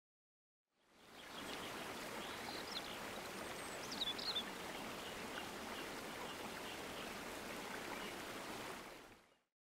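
Shallow creek running over a gravel bed, a steady rush of water that fades in about a second in and fades out near the end. A few short, high chirps rise above it around four seconds in.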